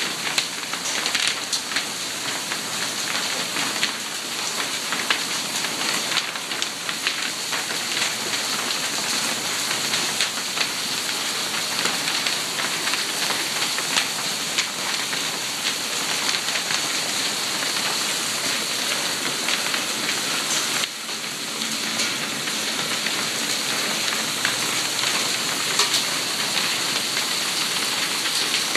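Marble-sized hail falling with heavy rain onto a gravel yard: a dense, steady patter made of countless sharp little ticks.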